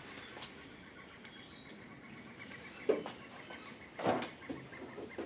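Low-level handling sounds at a car's open hood: a sharp knock about three seconds in and a short rattle of hits about a second later.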